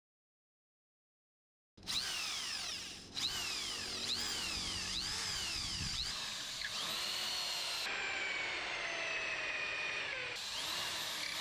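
An electric power tool's motor running in short edited stretches, its whine repeatedly dropping and rising in pitch as it bites into the work. It starts after about two seconds of silence.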